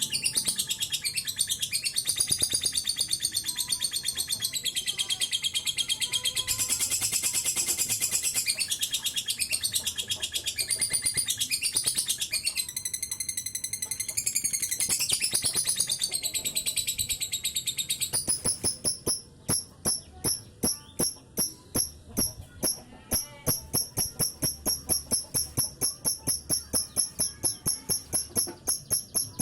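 Lovebird chattering without a break. First comes a dense stream of high, gliding warbled notes. From about two-thirds of the way through it switches to a rapid, even string of sharp chirps, about three or four a second: the long 'ngekek' call.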